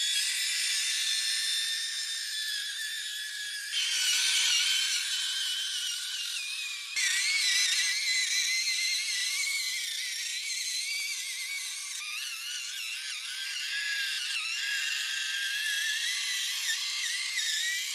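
Small electric motor and gearbox of a 1:24-scale FMS FCX24 Unimog 421 RC crawler whining, the high pitch wavering up and down with throttle. The level jumps abruptly about 4 and 7 seconds in.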